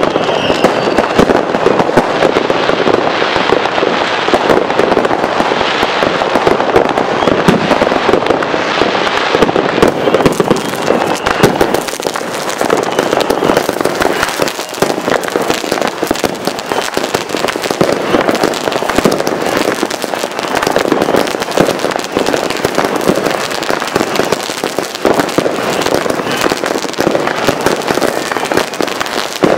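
Fireworks crackling non-stop, a dense stream of overlapping bangs and pops. About ten seconds in, a ground fountain firework close by adds a high hiss.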